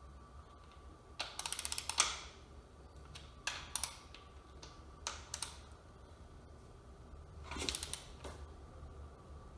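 Click-type torque wrench tightening small-block Chevy connecting-rod cap bolts. There are quick runs of ratchet clicks as the handle swings back, several times. About two seconds in comes a single louder, sharper click, typical of the wrench releasing at its 45 ft-lb setting.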